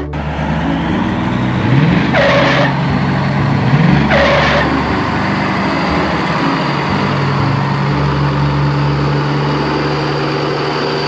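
A motor vehicle's engine running steadily, with two short, sharp sounds about two seconds apart a couple of seconds in.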